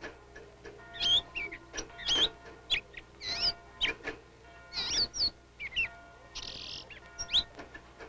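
A small caged songbird chirping: a run of short, quick chirps sliding up and down in pitch, with one brief harsh buzzy note about six and a half seconds in.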